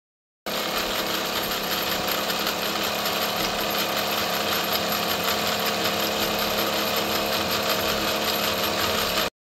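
Wilesco D405 Old Smoky toy steam tractor's live-steam engine running fast, a steady rapid chuffing of exhaust steam mixed with the clatter of its spinning flywheel and gears. It starts abruptly about half a second in and cuts off sharply near the end.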